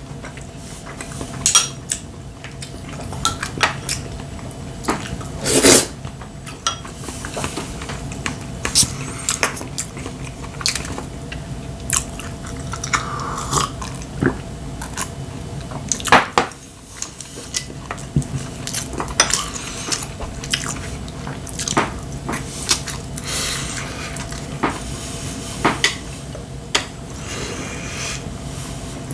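Close-up eating sounds: chopsticks and a spoon clicking and scraping against ceramic bowls and plates at irregular moments, with chewing in between.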